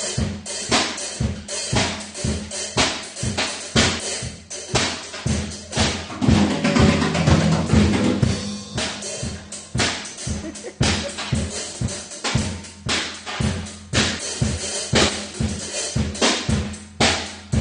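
A drum kit played with a steady, driving beat. A busier, louder passage comes about six to eight seconds in, then the steady beat returns.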